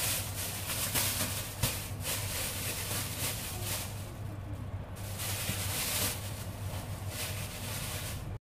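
Steady rushing hiss over a low hum, with a brief dip about five seconds in, cutting off abruptly near the end.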